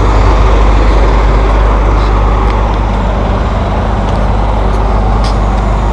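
Busy city street traffic: passing cars and a bus, a steady wash of engine and tyre noise with a heavy low rumble.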